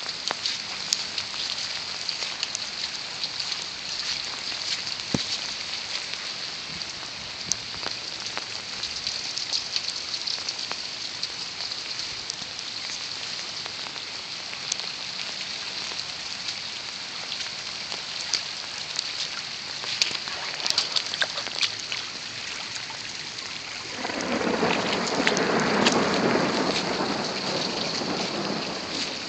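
Heavy rain falling steadily, with scattered sharp raindrop ticks over a constant hiss. About 24 seconds in, a louder, deeper rush of noise swells up and holds for several seconds.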